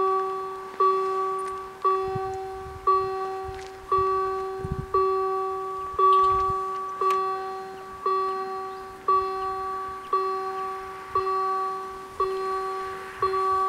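Level-crossing warning bell struck about once a second, each stroke ringing and fading before the next: the crossing's warning signal for an approaching train as the barriers lower.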